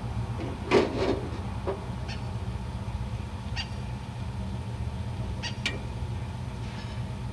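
Short clicks and knocks of a shooting target being set into its plastic stand by hand, over a steady low rumble. A brief, louder sound comes about a second in.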